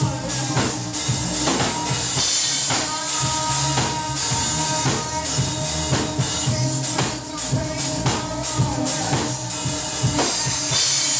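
Live rock band playing: drum kit with steady hits and cymbal wash, electric guitar and keyboard, with a man singing over it.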